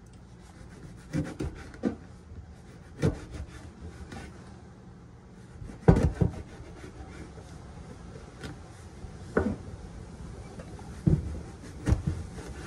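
Kitchen knife chopping eggplant on a wooden cutting board: irregularly spaced knocks of the blade striking the board, about a dozen, the loudest a double knock about six seconds in.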